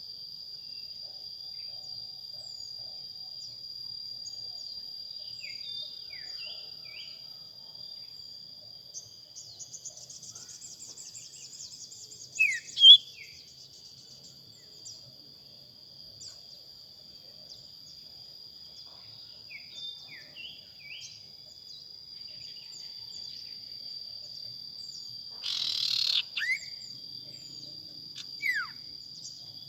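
Steady high-pitched insect drone, with short sharp falling whistles from birds calling now and then, the loudest ones twice together about 12 to 13 s in and again near the end. A fast high trill runs for a few seconds in the first half, and a brief loud rustle-like burst comes near the end.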